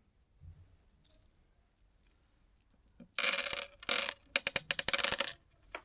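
Plastic candy packaging being handled: a few faint crinkles, then about three seconds in a loud stretch of crinkling and rattling that breaks into quick, sharp strokes. One more short rustle comes just before the end.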